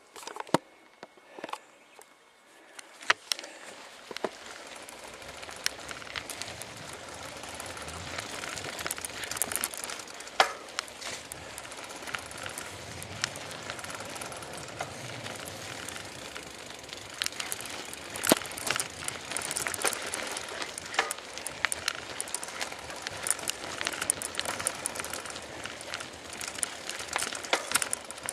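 Bicycle ridden along a dirt path: steady rolling and tyre noise with frequent sharp clicks and knocks from the bike going over bumps. The first few seconds hold only a few isolated clicks, then the rolling noise builds up.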